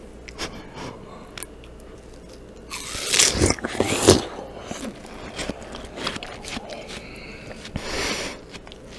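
Biting into a cube of fresh watermelon close to the microphone: a loud, wet, crunchy bite lasting just over a second about three seconds in, then quieter juicy chewing, and another short wet burst near the end.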